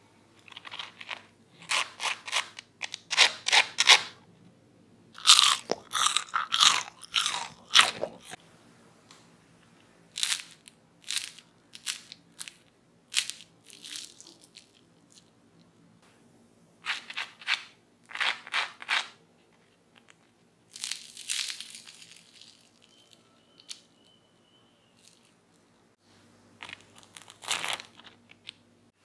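Crispy fried potato fries, made from mashed potato and corn starch, crunching and crackling as they are handled and broken apart by hand. There is a dense run of crunches in the first eight seconds or so, then scattered single crunches.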